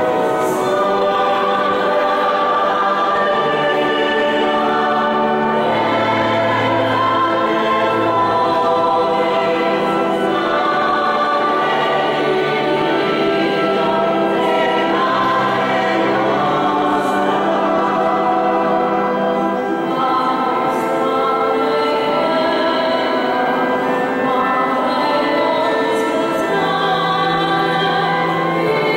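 Choir singing a slow sacred hymn in long, held notes.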